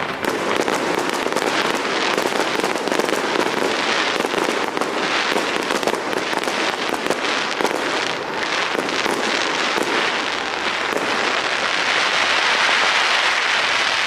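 Fireworks display: a dense, continuous barrage of rapid bangs and crackles, thickening into an unbroken crackle near the end.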